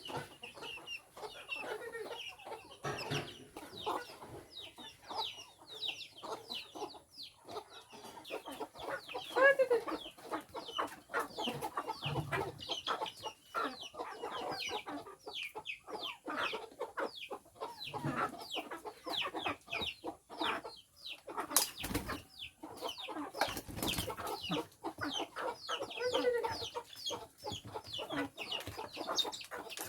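A flock of chickens clucking and calling, with many short overlapping calls, and two sharp knocks about two-thirds of the way through.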